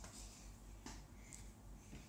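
Near silence: room tone, with one faint brief click about halfway through.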